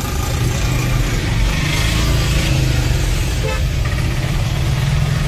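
Engine and road noise of a moving vehicle heard from inside its cabin: a steady low rumble with a hiss over it.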